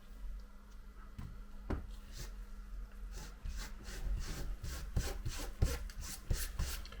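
Rapid back-and-forth scraping strokes from cleaning the opened iPhone 7, about three a second. The strokes start faint and grow stronger from about two seconds in.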